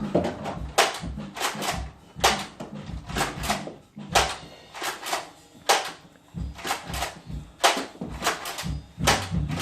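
Nerf dart blaster being primed and fired again and again: a quick, uneven run of sharp clacks and pops, about two a second.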